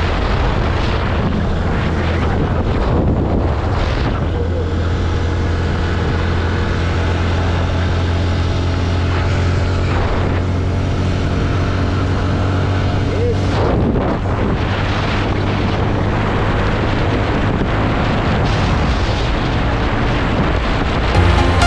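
Yamaha Y15ZR's single-cylinder four-stroke engine, tuned up but on its standard exhaust, running hard as the motorcycle accelerates at speed, with wind rushing over the microphone. The engine note breaks briefly about two-thirds of the way through.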